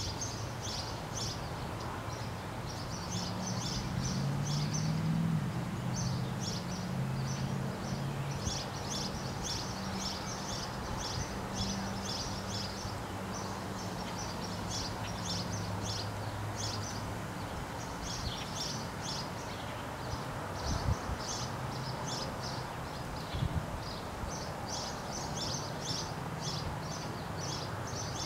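House sparrows chirping: short, high chirps in quick runs, over and over. A low steady drone sits underneath for roughly the first half, and there are a couple of brief dull knocks later on.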